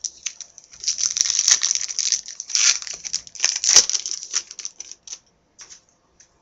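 Trading-card pack wrapper crinkling and tearing open: a dense crackle for about three seconds with a few sharp snaps, then a few soft rustles.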